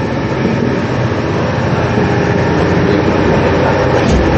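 Steady loud drone of a ship's engine-room machinery, a dense rumble with a low hum, with a brief knock near the end.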